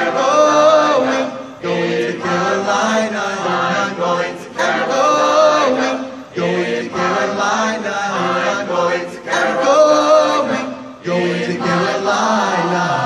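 Military chorus singing in harmony, in phrases a few seconds long with brief breaks between them.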